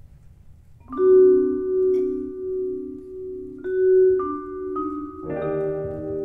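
Vibraphone notes ringing with long sustain: a first note about a second in, a few more struck notes later, and a fuller, lower chord joining near the end.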